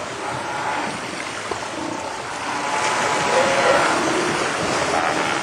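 Steady wash of water and boat noise, with faint wavering calls underneath.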